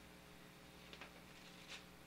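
Near silence with two faint clicks, about one second in and again near the end, from takeout food boxes being handled at a counter.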